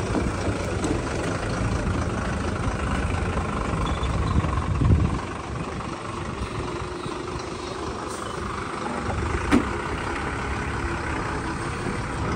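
Ashok Leyland diesel truck engine running at low speed while the truck is manoeuvred into its parking spot, with a brief swell in engine sound about five seconds in and a single sharp click later on.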